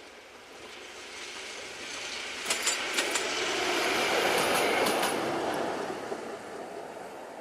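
Diesel locomotive running light past at close range, its engine and running noise swelling to a peak about four to five seconds in and then fading. Sharp clicks of wheels over rail joints come twice as it passes.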